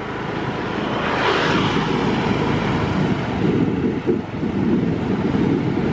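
INKA battery electric tram rolling past at close range: a steady rumble of wheels on the rails that swells about a second in and then holds.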